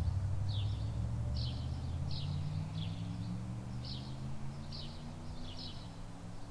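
A small bird chirping over and over, short chirps that fall in pitch, about one or two a second, over a low steady hum that rises slowly in pitch.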